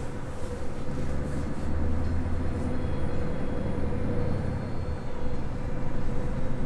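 Scania truck driving on the road, heard from inside the cab: a steady low engine rumble with road noise and a steady hum.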